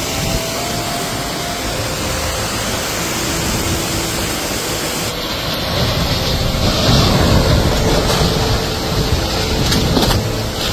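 Hurricane wind and rain, a loud steady rush buffeting the microphone. The sound shifts abruptly about five seconds in and grows louder after that.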